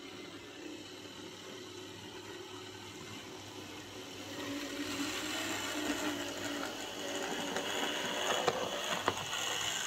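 Airfix Class 14xx OO gauge model tank locomotive running along the track, its motor and gears whirring, quite noisy, and getting louder from about four seconds in as it comes closer. A couple of sharp clicks sound near the end.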